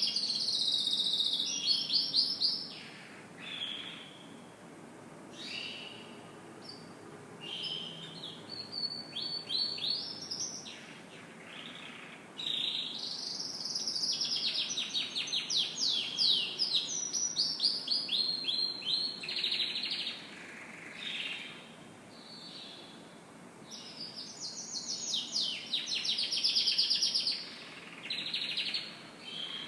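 Domestic canary singing: phrases of fast rolling trills, some long, with short pauses between them.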